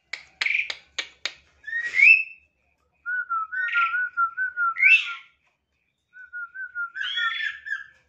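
Caged songbirds singing. A few quick sharp chirps and a rising whistled note come first, then a wavering warbled phrase with rising whistles over it, repeated after a short pause.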